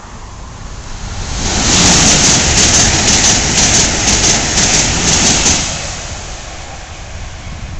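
Amtrak Acela Express electric trainset passing close by at speed: a rush of wheel and air noise that swells about a second in, stays loud for about four seconds, then fades as the train draws away.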